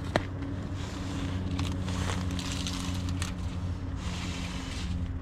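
Dry twigs and pine needles rustling and crunching as they are gathered by hand, with a sharp snap just after the start. Under it runs a steady low hum.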